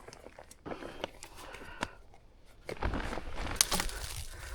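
Crinkling and rustling of fabric or plastic being handled, with scattered small clicks, getting louder about three seconds in.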